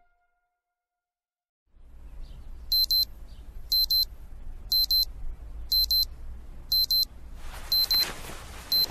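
Digital alarm clock beeping in short quick bursts about once a second, starting a couple of seconds in over a low steady hum. It is a morning wake-up alarm going off. A rustling noise joins near the end.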